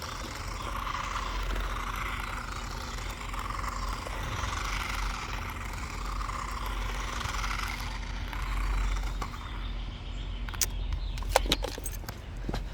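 Remote-control toy car driving, its small electric motor and wheels making a steady whirring that swells and eases for about ten seconds, with a few sharp clicks near the end.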